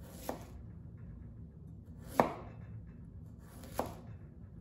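Chef's knife slicing through a raw beet and knocking onto the cutting board, three cuts about two seconds and then a second and a half apart, the second the loudest.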